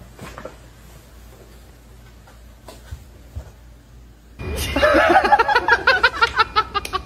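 Quiet room with faint rustling, then about four seconds in people break into loud, rapid laughter that keeps going.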